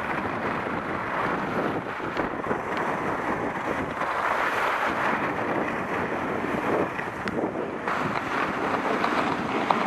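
Wind rushing over the microphone of a camera carried by a downhill skier, mixed with the steady hiss of skis sliding on packed snow. The noise swells and eases a little with speed and turns.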